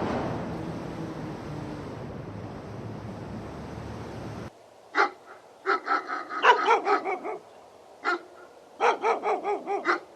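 A rushing noise, fading, cuts off abruptly about four and a half seconds in. A dog then barks repeatedly in quick runs of several barks.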